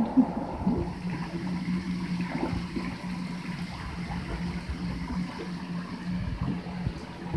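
Shower water running into a bathtub with irregular splashing as a pet goose bathes in it, over a steady low hum.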